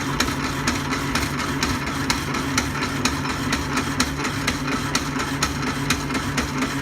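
Restored vintage Jefferson power hacksaw, driven by its electric motor, cutting through a 1-inch tube. The saw frame strokes back and forth with a regular click about twice a second over a steady motor hum.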